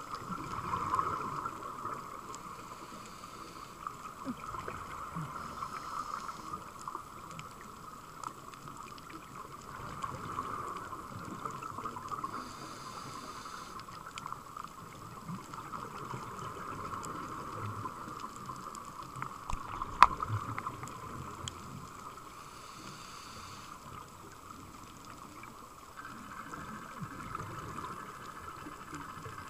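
Underwater sound picked up by a diver's camera in its housing: a steady muffled hiss and hum, with scuba regulator exhaust bubbles coming and going every few seconds. A single sharp click about twenty seconds in.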